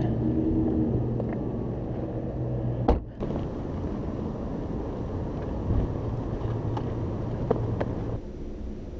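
A car idling with a low steady hum. About three seconds in there is a sharp knock, followed by a low rumble of outdoor noise with a few faint clicks, which drops away near the end.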